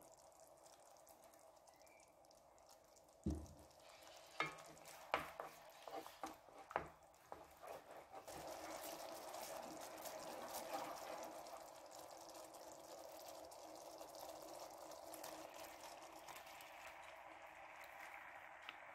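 Tomato and yogurt sauce simmering in a pan while it is stirred: a few sharp knocks on the pan about three to seven seconds in, then a steady sizzle and bubbling under the stirring.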